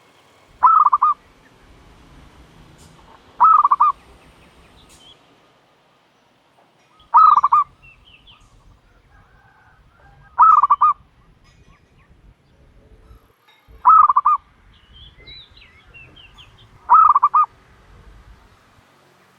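A dove calling from its nest: six short, loud calls, each a quick pulsed note, repeated about every three seconds. Faint chirps from other small birds come between the calls near the end.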